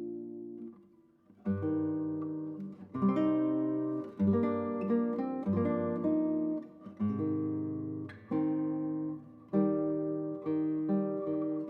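Background music: acoustic guitar, plucked chords and notes that ring and fade, with a short pause about a second in.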